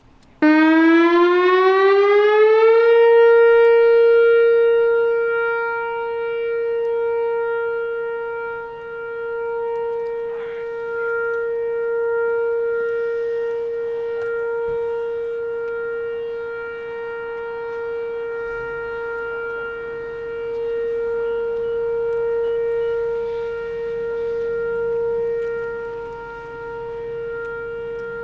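Whelen Vortex R4 outdoor warning siren sounding a full-alert steady tone. It starts about half a second in, rises in pitch over the first couple of seconds, then holds one steady note that swells and fades in loudness as the siren rotates.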